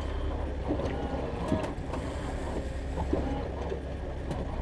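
Steady low rumble of a fishing boat on the water, with wind on the microphone and a few light knocks and clicks.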